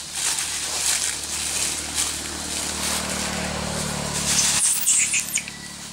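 Dry leaf litter rustling and crackling as a macaque moves and forages through it, with a cluster of sharp crackles near the end. A low hum runs underneath for about two seconds in the middle.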